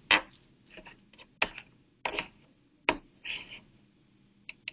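A handful of sharp clicks and taps at a computer, from its mouse and keyboard, roughly one a second, with a short rustle about three seconds in.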